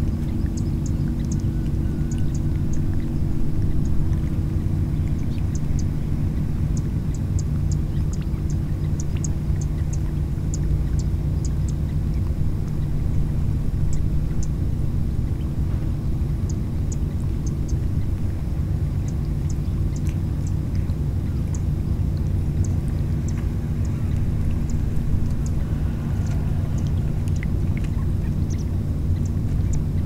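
A steady low engine rumble with a constant pitch, with many faint, short, high ticks scattered through it.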